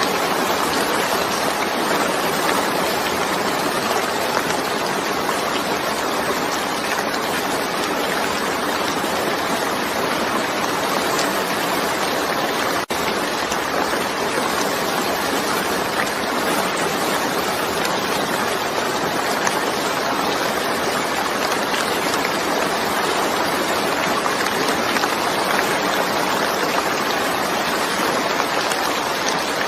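Steady rain falling, a dense even hiss with no breaks except a momentary dropout about thirteen seconds in.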